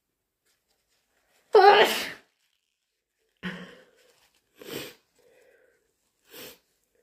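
A person sneezing: one loud, voiced sneeze about a second and a half in, followed by three shorter, quieter bursts. The sneezes are allergy sneezes.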